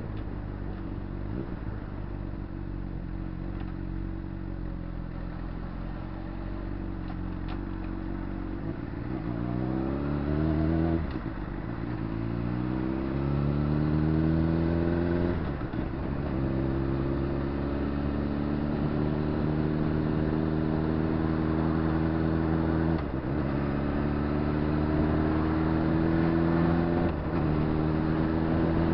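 Honda CBR600RR's inline-four engine heard from onboard, running steadily at low revs, then from about nine seconds in accelerating through the gears: the revs climb and drop sharply at each of four upshifts, growing louder as it speeds up.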